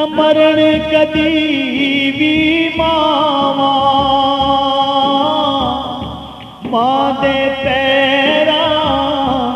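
A man singing a Punjabi naat in long, wavering held notes over instrumental accompaniment with a regular beat. The voice drops away briefly about two-thirds of the way through, then starts a new phrase.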